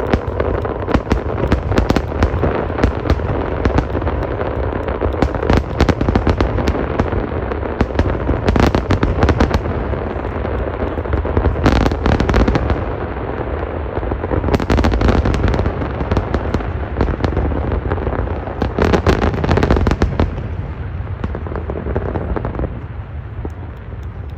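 Fireworks display going off: a dense, continuous run of bangs and crackling, with several louder clusters of bursts, thinning and quieter near the end.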